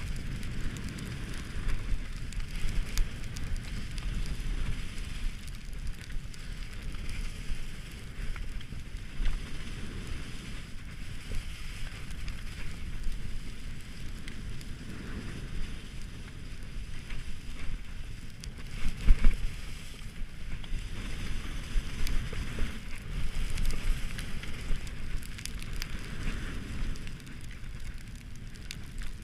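Skis sliding and scraping over snow while skiing downhill, with wind buffeting the camera microphone. Irregular small knocks throughout, and one sharper thump about two-thirds of the way through.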